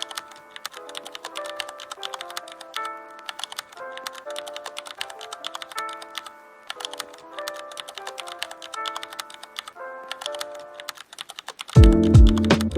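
Background music: a light melody of short notes with rapid keyboard-typing clicks over it, then a much louder, bass-heavy beat coming in near the end.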